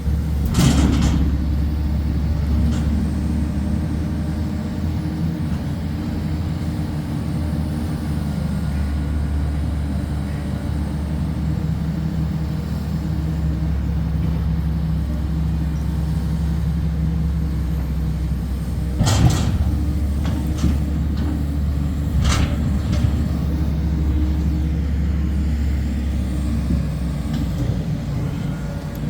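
Heavy diesel machinery running steadily with a low, even drone. Three short sharp noises cut in over it: one about a second in, and two more about three seconds apart past the middle.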